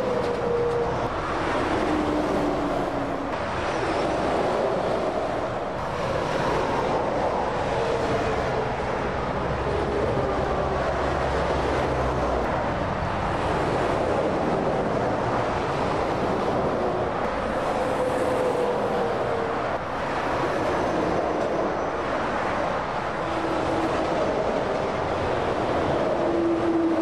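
Steady motorway traffic: articulated lorries and cars passing at speed, with continuous tyre roar and the engine tone of each passing lorry sliding down in pitch as it goes by.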